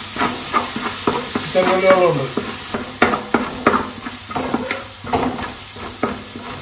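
A metal spatula stirring and scraping a metal pot with irregular clicks, while crushed garlic, ginger and shallots sizzle in hot coconut oil.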